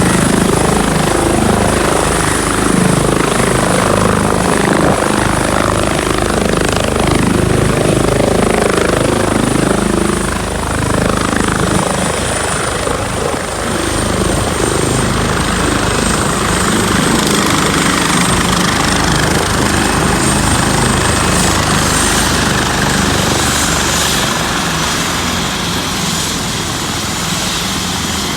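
Medical helicopter's turbine and rotor running loud and steady, with a thin high turbine whine that slowly sinks a little in pitch; the sound gets slightly quieter after about ten seconds.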